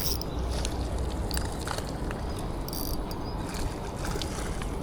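Spinning reel being cranked on a lure retrieve, with scattered faint high ticks over steady wind rumble on the microphone.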